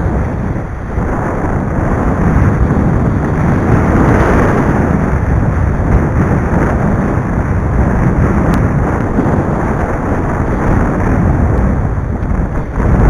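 Strong wind buffeting the microphone in a loud, steady rumble, mixed with the rush of waves and spray in rough, choppy sea.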